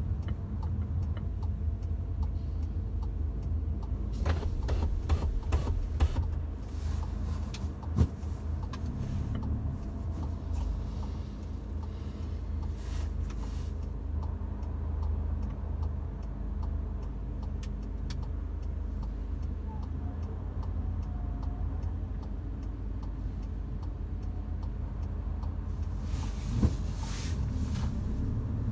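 Low road and engine rumble inside a moving Mk7 Volkswagen Golf GTI's cabin, with intermittent light clicks and rattles from the interior, heard mostly between about four and ten seconds in and again near the end.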